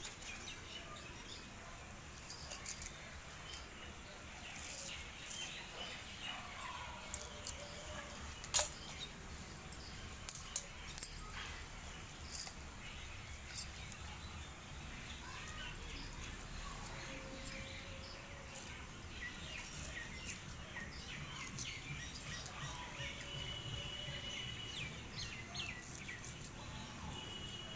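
Scissors snipping fenugreek microgreens from a pot: faint, irregular sharp clicks, thickest in the first half. A few short, faint bird chirps come in near the end.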